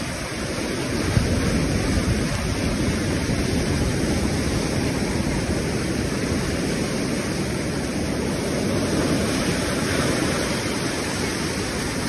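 Ocean surf breaking and washing through the shallows: a steady rush of white water with no clear pauses between waves.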